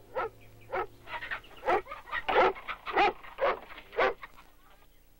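Airedale terrier barking in a quick series of short barks, about two a second, stopping about four seconds in.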